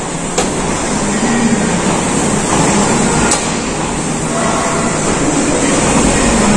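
Steady noise of a busy gym floor, with two sharp metallic clicks, about half a second in and about three seconds in, typical of a weight machine being set up.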